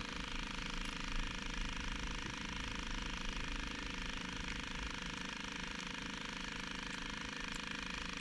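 Fishing reel being cranked, a steady mechanical whirring from its gears.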